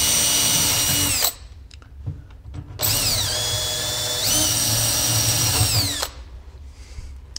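Cordless drill boring handle holes through a white melamine cabinet door, in two runs: the first stops about a second in, the second runs from about three seconds to six. In the second run the whine drops in pitch as the bit bites, then steps up near the middle.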